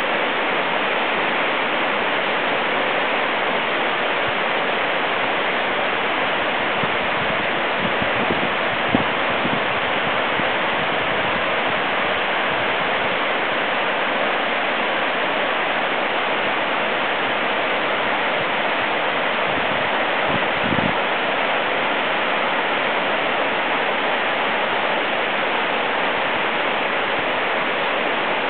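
Vickery Creek's water rushing below the trail, an even, unbroken hiss of moving water.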